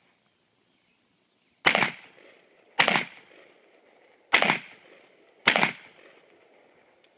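Four pistol shots, a little over a second apart, each trailing off in a short echo.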